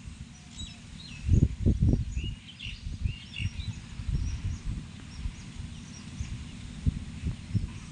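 Small birds chirping in short, scattered calls over gusts of wind buffeting the microphone in low rumbles, the strongest gust about a second and a half in.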